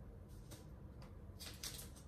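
Blue painter's tape being pulled off the roll and pressed along the base of a cabinet, in short rasps: one faint one early, then several in quick succession in the second half.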